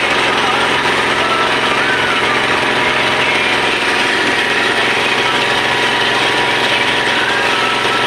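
A motorboat's engine running steadily at an even speed.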